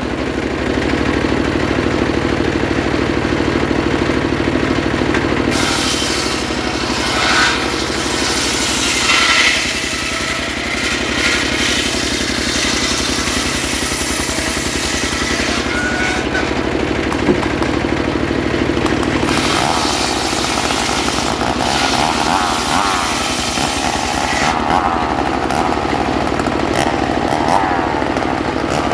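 Homemade circular saw bench ripping trembesi (rain tree) wood: the blade cutting through the plank over the steady running of the engine that drives it. The cutting noise rises and falls as the plank is fed through.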